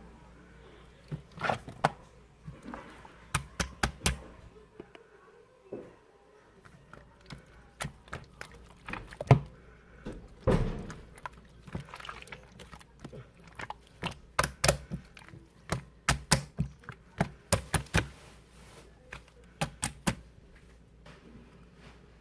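Irregular sharp clicks, taps and a few duller knocks of small objects being handled on a hard surface, with louder thumps about nine and ten seconds in.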